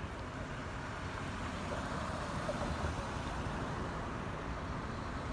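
Road vehicle noise, as of a car driving past, swelling a little about halfway through and easing off over a low rumble.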